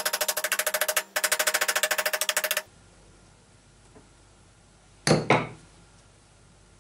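Rapid, even metallic clatter of about fourteen clicks a second in two runs, from hand-tool work at a Babetta moped's gearbox sprocket. Two short, sharp sounds follow about five seconds in.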